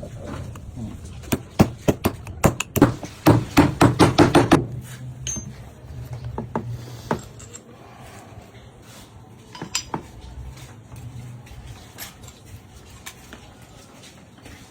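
Small metal pieces clinking and tapping: a dense run of quick sharp clicks for the first few seconds, then only a few scattered clicks.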